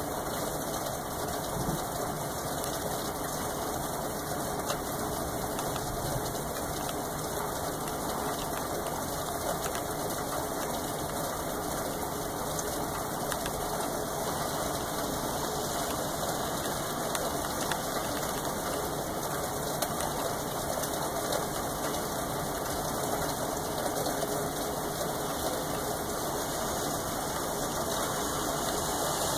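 Steady rain falling: an even hiss with faint scattered ticks of drops, without a thunderclap.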